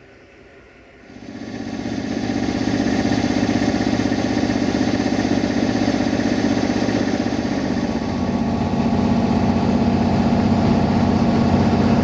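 Diesel-hydraulic shunting locomotive's engine coming up about a second in and running steadily under load as the train moves off, with the carriages rolling past close by.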